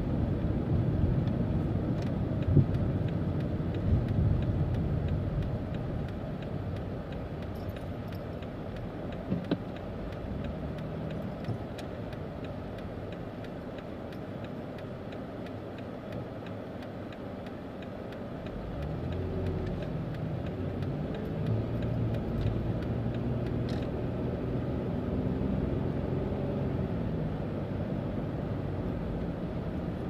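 Road and engine rumble inside a moving car's cabin. It is steady and low, dies down through the middle, then grows louder again about two-thirds of the way through as the car gets going. A few faint clicks sound over it.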